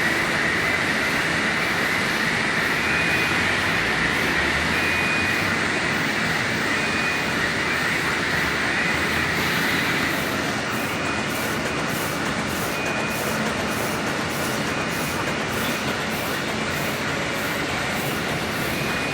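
Roll paper slitting and cross-cutting machine running, a steady mechanical din with a high whine in the first half and a faint regular beat, about twice a second, in the second half.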